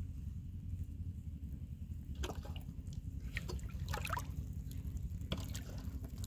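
Water splashing and trickling around a floating plastic-bottle fish trap as it bobs and tips, with short irregular splashes starting about two seconds in. A steady low rumble runs underneath.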